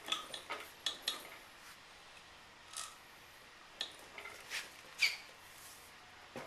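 Irregular light metallic clicks and clinks of hand tools and small metal parts being handled, some ringing briefly, the sharpest a little after five seconds in.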